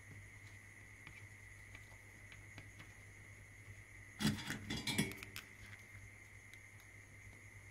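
A short clatter of light metal knocks about four seconds in, as a soldering iron is pulled from its metal holder. A few faint ticks from handling thin wire come before it, over a steady low hum and a high whine.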